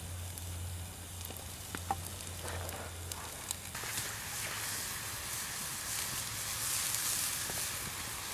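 Sliced mushrooms frying in butter in a frying pan over a wood campfire: a few light clicks as slices go in, then a steady sizzle that swells about four seconds in and stays strong.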